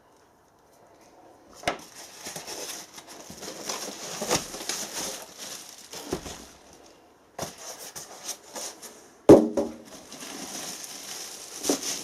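Packaging rustling and crinkling as heater kit parts are unwrapped and handled, with a few sharp knocks of parts being set down or bumped; the loudest knock comes about nine seconds in.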